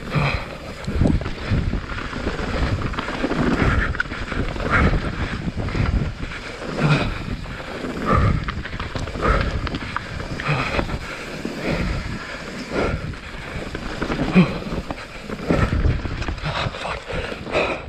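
Mountain bike running fast down a wet, muddy dirt trail: wind buffeting the action-camera microphone, with tyres rolling over dirt and rock and irregular knocks and rattles from the bike over bumps.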